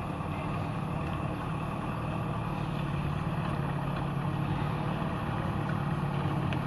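An old sugarcane truck's engine running steadily under load as the truck creeps up a dirt incline, growing gradually louder as it approaches.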